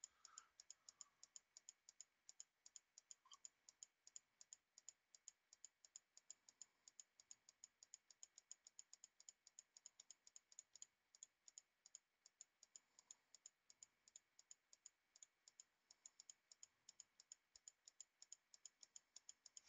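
Near silence with faint, evenly spaced clicking, about four or five clicks a second.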